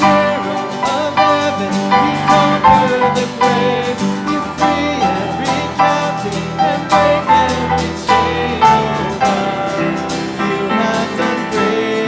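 Worship band music: strummed acoustic guitar with a sung melody over it, in a steady beat.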